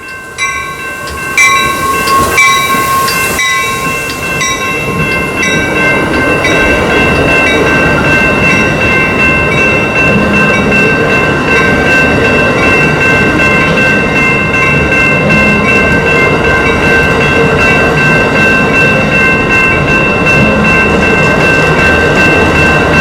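Train passing close by, its wheels and cars making a loud, steady rumble that builds over the first few seconds. High ringing tones are held throughout, over evenly spaced strikes in the first several seconds.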